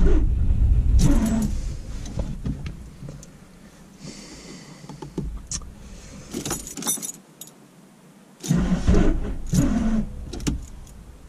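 A keyring jangling at the ignition as the key is worked back and forth, with low thuds and handling knocks. The engine does not run.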